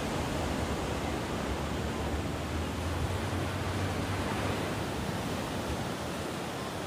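Pacific Ocean surf breaking on a sandy beach: a steady, unbroken rush of waves.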